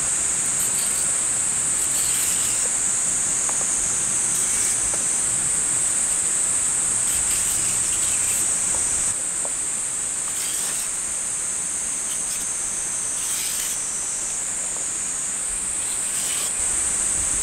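A steady high-pitched insect chorus, with the short scrapes of a vegetable peeler stripping a raw carrot every one to three seconds.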